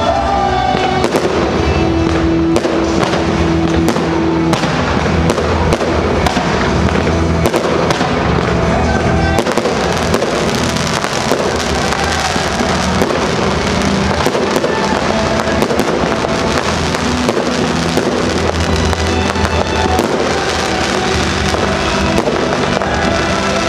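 A fireworks display: a rapid, irregular run of bangs that grows denser from about ten seconds in, with loud music playing alongside.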